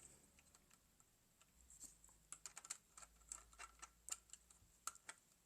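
Faint, irregular small clicks and taps of plastic LEGO pieces being handled and pressed together, starting about two seconds in.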